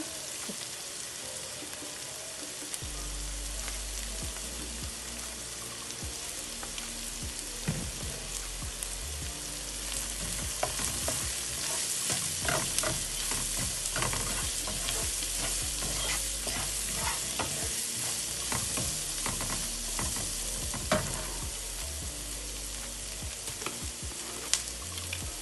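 Chopped onions, garlic and green chili sizzling steadily in oil in a frying pan, with a wooden spoon stirring and scraping against the pan in quick clicks and taps, busiest through the middle.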